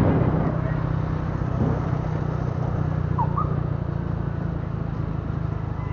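Motor scooter engine running steadily while riding slowly through town traffic, with road and wind noise. A brief high chirp comes about halfway through.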